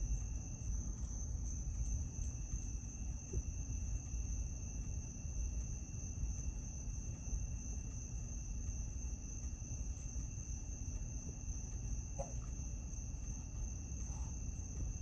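Crickets trilling steadily in the night, two high unbroken tones at different pitches, over a low rumble of microphone noise.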